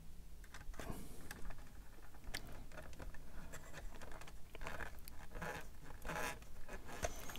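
Small screwdriver driving tiny screws into plastic model-kit parts, with faint scattered clicks, scratches and scrapes from the screws and the handled plastic.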